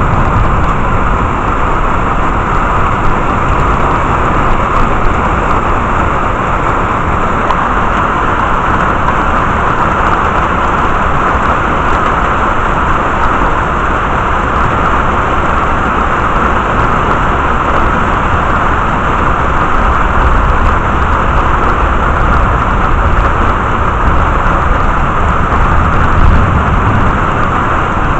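Heavy thunderstorm rain: a loud, steady, dense rush with a deep rumble underneath.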